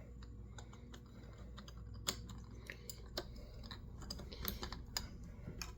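Faint, irregular small clicks and light metal taps from hands and parts working the mounting bolts onto a chainsaw carburetor, with a few sharper clicks about two, three and four and a half seconds in.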